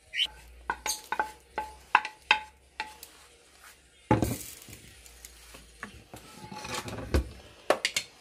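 A utensil tapping against a frying pan as sautéed mushrooms are scraped out into a plastic bowl of beaten eggs: about seven short, ringing taps over the first three seconds. A louder clatter follows about four seconds in, then a few more kitchenware clicks near the end.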